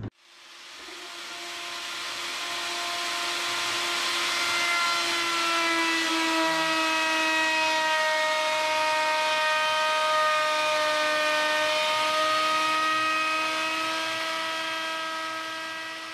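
Electric plunge router running while cutting along a Huon pine tiller blank, a steady high whine that fades in over the first few seconds, sags slightly in pitch in the middle and fades out near the end.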